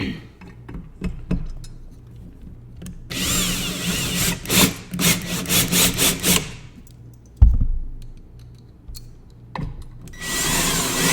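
Drill/driver running in two bursts, driving a screw to snug up a wall-shelf bracket, its motor whine rising and falling as the trigger is worked. A sharp thump comes about two-thirds of the way through, between the two runs.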